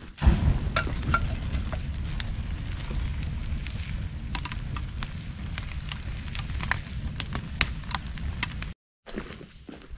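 Open fire burning close by, a steady low rumble with scattered sharp crackles. It starts suddenly and cuts out abruptly near the end.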